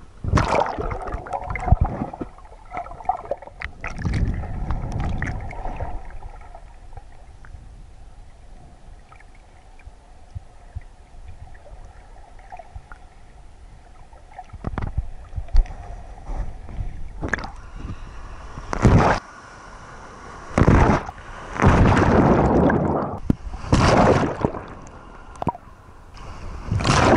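Sea water sloshing and gurgling around a camera held at the surface, dipping under and coming back up. It is quieter and muffled through the middle, then loud bursts of splashing come several times near the end as small waves wash over it.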